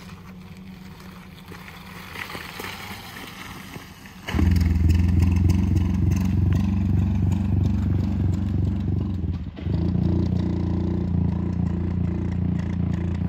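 Small single-cylinder pit bike engine running steadily close by. It cuts in suddenly about four seconds in, drops out for a moment near ten seconds, then carries on. Before it, only a fainter engine sound is heard.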